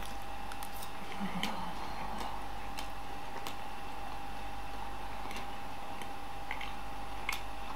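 Quiet room tone: a steady electrical hum with a few faint, irregular small clicks and ticks scattered through it.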